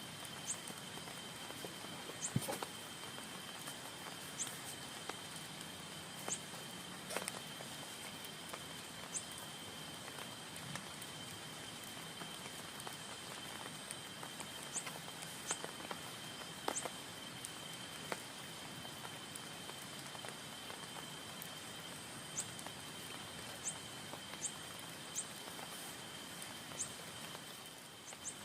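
Rain on a tent: a steady hiss with irregular drops tapping sharply on the fabric, a few a second.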